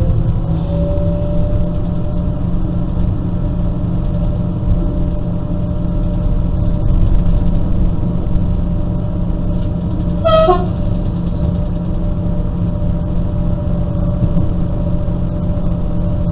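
X73500 diesel railcar running along the line, heard from the driver's cab as a steady low rumble with a faint whine. About ten seconds in, the railcar's horn gives one short blast.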